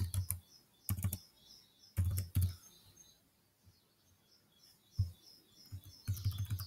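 Chromebook keyboard keystrokes and clicks in a few short clusters with pauses between, over faint, rapidly repeated bird chirps in the background.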